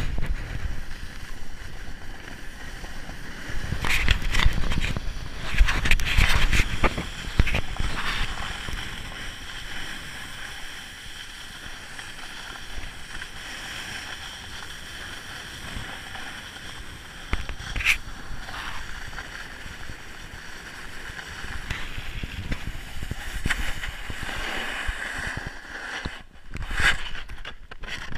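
Snowboard sliding over packed snow: a steady hiss and scrape of the board on the snow. Wind buffets the camera microphone in louder, rumbling rushes a few seconds in.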